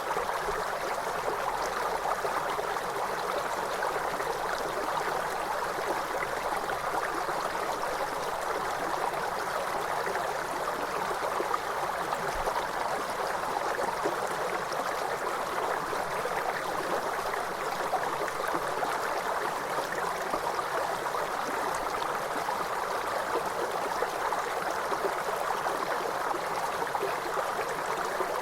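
River water flowing over rocks: a steady, even rushing and babbling with no let-up.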